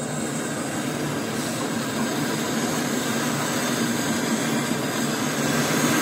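Brazing torch flame hissing steadily as it heats the AC compressor's copper discharge line to braze shut a refrigerant leak, growing slightly louder.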